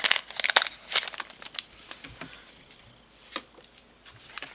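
Foil Pokémon booster pack wrapper crinkling as it is handled and the cards are pulled out. It is strongest in the first second and a half, then dies down to a few soft clicks.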